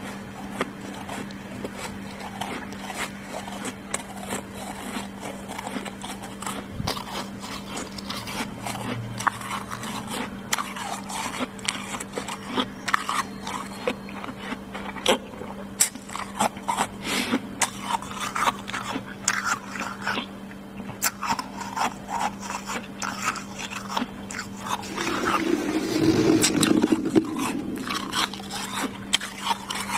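Freezer frost being crunched and chewed, a run of irregular crisp crunches. Near the end a hand scrapes and crushes the frost, the loudest stretch, over a steady low hum.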